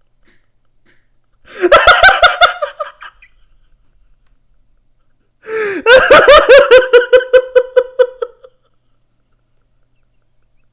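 A man laughing in two bursts of rapid, high-pitched 'ha-ha' pulses. The first is short, about a second and a half in. The second, longer burst starts with a falling squeal about five and a half seconds in and then runs in quick even pulses for about three seconds.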